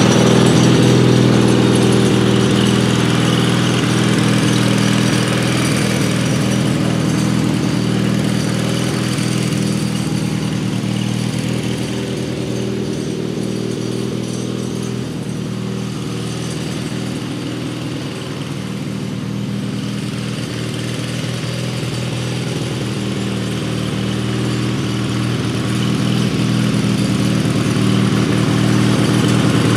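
1990 Wheel Horse 520-H garden tractor engine running steadily under way, still on choke. The sound fades as the tractor drives off and grows louder again near the end as it comes back.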